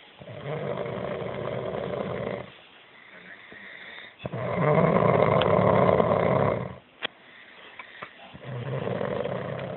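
Loud snoring: three long drawn snores of about two seconds each, spaced a few seconds apart, the middle one the loudest.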